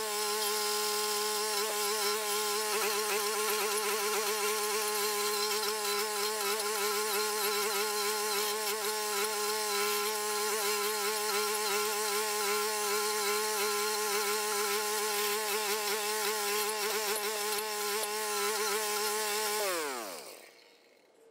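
Toro rental stump grinder's small gasoline engine running steadily while its cutter wheel grinds down a stump. Near the end the engine is shut off, and its pitch falls quickly as it winds down to silence.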